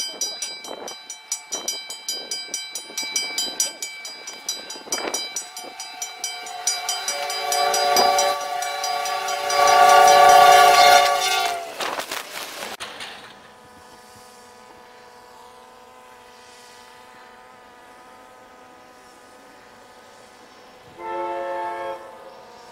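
Train horn sounding a chord over a rapid rhythmic clatter as a snowplow train approaches through deep drifts. The horn grows louder to a peak, then cuts off suddenly and leaves a quieter steady hum. Near the end another plow train sounds a short horn blast.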